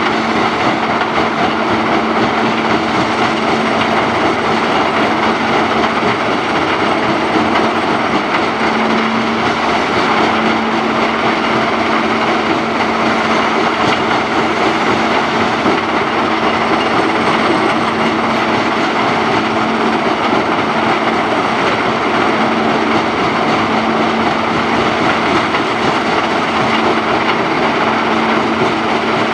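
Mobile rock-crushing plant, a jaw crusher feeding a cone crusher, running steadily under load: a continuous rattle and grinding of stone through the crushers and conveyors over the even drone of their diesel engines, with one steady hum throughout.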